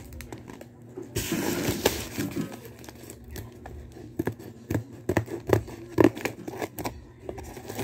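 Plastic wrapping and packing tape on a cardboard parcel being cut and torn open: a long tearing rasp about a second in, then a run of sharp scratches and clicks as the tape is cut and the plastic crinkles.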